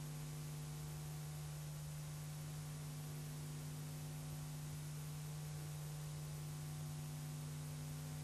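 Steady low electrical hum with a few fainter overtones and an even hiss: the background noise of an old videotape soundtrack.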